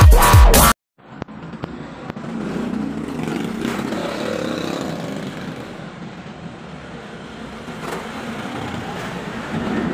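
Electronic intro music cuts off sharply less than a second in. It is followed by steady outdoor background noise of passing road traffic, with a few faint clicks.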